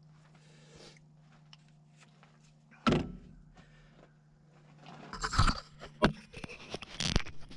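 Handling noise as the camera is repositioned: one sharp thunk about three seconds in, then a run of knocks, scrapes and clinks from about five seconds on.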